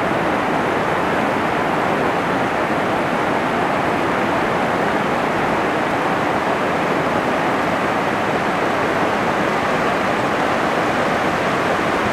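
Whitewater rushing over a low river weir and churning through the rapids below, a loud, steady noise.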